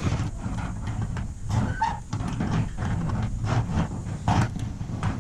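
Power drill enlarging the existing lock hole in a garage door to 16 mm: a low, uneven rumble broken by repeated clicks and knocks.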